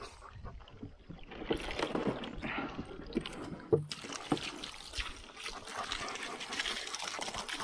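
Water running and trickling, with a few knocks and handling sounds in the first half; about four seconds in the flow turns into a steady full rush.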